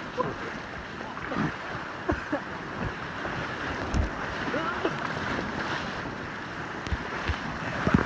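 Whitewater rapids rushing steadily around an inflatable raft, with a few short knocks and splashes as the raft rides down through them.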